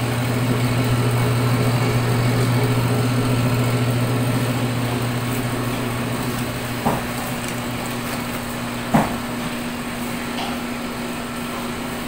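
Electric motor of a K.B.I.W heavy-duty paper cutter running with a steady hum, a little louder in the first few seconds and then easing off slightly. There are two short sharp knocks about seven and nine seconds in.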